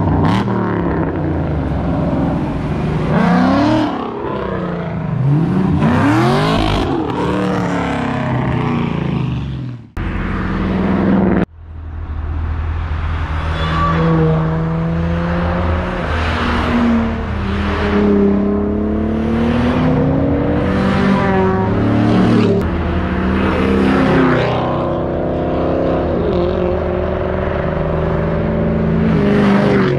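Several sports and modified cars driving past one after another, their engines revving and exhausts rising and falling in pitch as they go by. After a brief break about ten seconds in, engines accelerate with their pitch stepping up and dropping back repeatedly.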